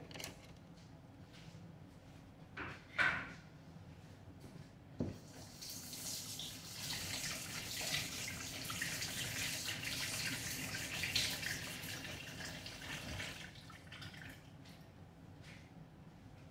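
Kitchen tap running in a steady stream for about eight seconds, starting about five seconds in and then shut off. A couple of short knocks come before it.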